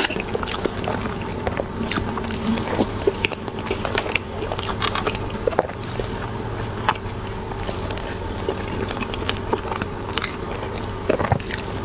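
Close-miked biting and chewing of soft cream cheese bread: irregular small clicks and wet mouth smacks over a low steady hum.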